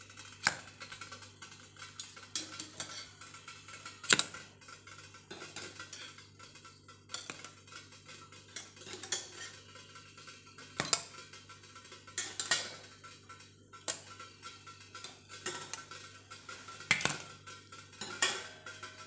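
Stainless-steel idli cups clinking as they are set down one at a time on a steel plate: a sharp metallic clink every one to three seconds, about a dozen in all.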